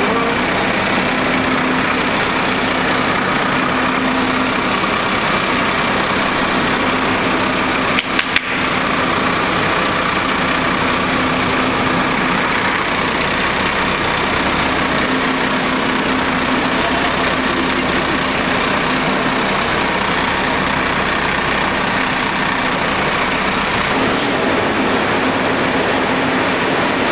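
Tour coach's diesel engine running steadily at low speed close by as the coach is slowly manoeuvred into a bay. A few sharp clicks about eight seconds in.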